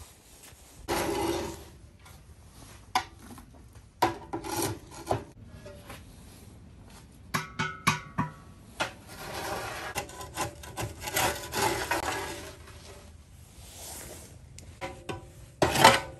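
Irregular rubbing and scraping of things being handled, broken by several sharp knocks, with a brief run of ringing clinks about halfway through.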